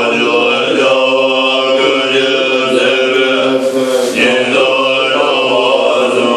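Tibetan Buddhist monks chanting together in low, sustained voices, one long unbroken passage that shifts pitch every second or so.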